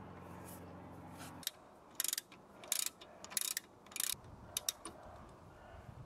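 Socket ratchet clicking in four short bursts, then a few single clicks, as a rear brake caliper bolt is wound in and tightened. A low steady hum stops about a second and a half in.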